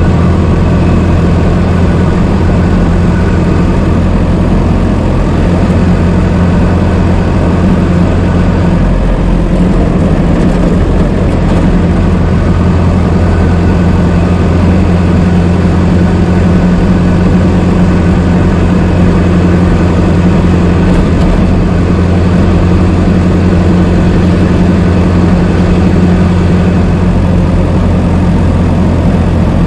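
1926 Ford Model T's four-cylinder engine running steadily as the car is driven, a loud, even low engine note. The engine note shifts briefly about nine seconds in.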